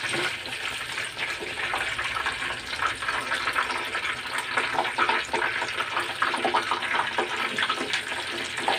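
Breaded chicken cordon bleu deep-frying in a small saucepan of hot oil: a steady sizzle full of small crackles and pops.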